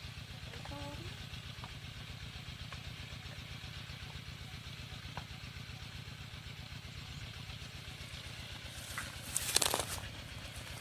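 A small engine running steadily with an even, fast low pulse, and a brief noisy rush about nine and a half seconds in.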